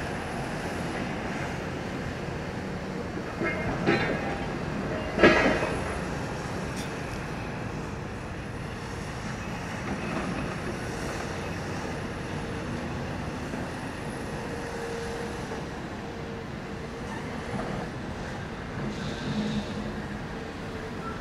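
Scania R730's V8 diesel truck running as it pulls a dump semi-trailer loaded with demolition debris away. Two sharp metal clanks come about four and five seconds in.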